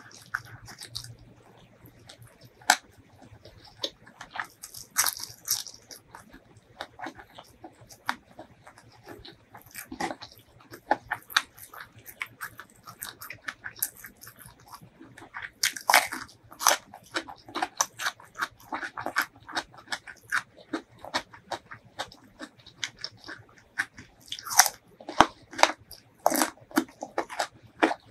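Close-miked eating sounds: wet chewing and small mouth clicks, then from about halfway, louder crisp crunching bites and chewing of a raw red radish.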